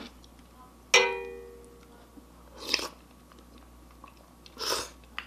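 A sharp clink about a second in, as a utensil strikes a dish and rings out for about a second. Then come two short slurps of ramen noodles and broth, about two seconds apart.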